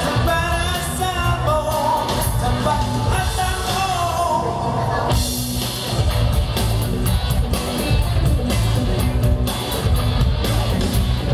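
Live amplified band playing a pop-rock song with a steady beat; a voice sings the melody over it for about the first five seconds, then the band carries on without the voice.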